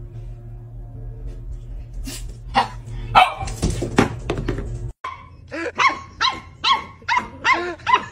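A puppy barking in a quick run of short, high-pitched yaps, about two or three a second, in a play bow facing a bigger dog. Before it comes a steady low hum with several loud knocks, which ends abruptly.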